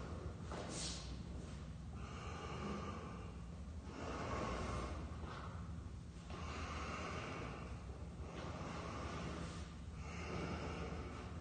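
A man breathing slowly and heavily while holding deep stretches, each inhale or exhale lasting one to two seconds, over a steady low hum.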